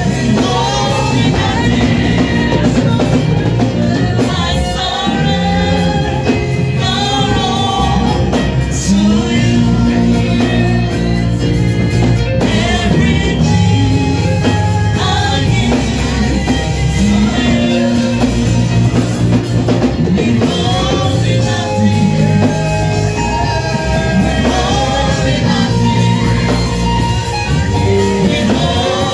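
Gospel worship music: voices singing over a band, with a prominent bass line.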